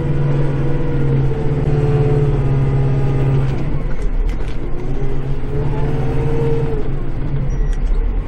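Kubota tractor's diesel engine running under load, heard from inside the cab; the revs sag about halfway through, climb again, and dip once more near the end.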